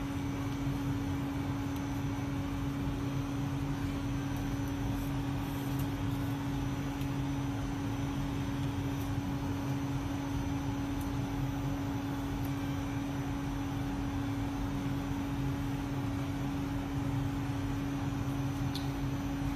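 Steady machine hum: one constant low tone held over a low rumble and a faint hiss, with a few faint ticks.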